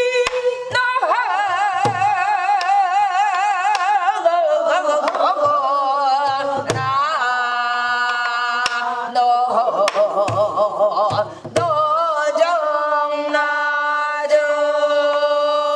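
Korean gueum, wordless vocal scat, sung in long held notes with wide vibrato and changing pitch every few seconds. A buk barrel drum struck with a stick in gutgeori rhythm gives a few deep thumps underneath.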